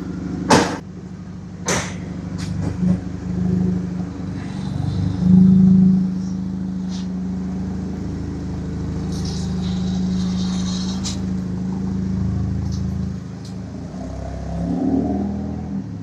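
Two car doors shutting on a Honda hatchback, then its engine running steadily as the car drives slowly away, louder briefly about five seconds in.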